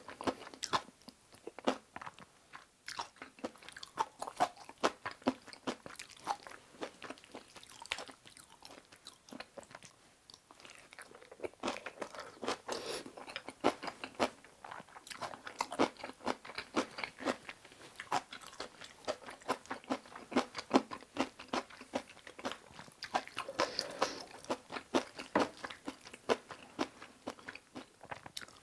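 Close-miked chewing of mouthfuls of cream kimchi fried rice and kimchi: fast, wet, crunchy mouth sounds that ease off for a few seconds about a third of the way in.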